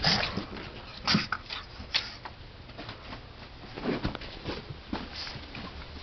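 A pug breathing and snuffling with its nose right against the microphone: short, sudden noisy bursts about a second apart, the loudest near the start and about a second in.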